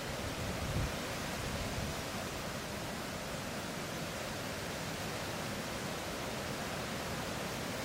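Strong wind blowing through trees in fresh early-summer leaf, the leaves and branches rustling in a steady hiss, with a few heavier low gusts in the first two seconds.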